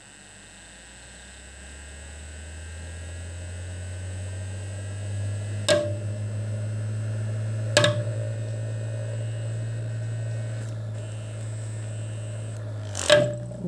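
StylPro Squeeze Blender makeup-sponge cleaner spinning a wet sponge in its bowl: a steady electric motor hum that grows louder, with a faint rising whine. Two sharp knocks come midway, and a louder clatter comes as it stops near the end.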